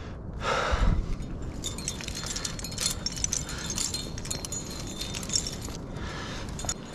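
Trad climbing rack of metal cams and carabiners clinking and jingling on the harness, a run of quick light clicks. Near the start comes one loud, hard exhale of breath.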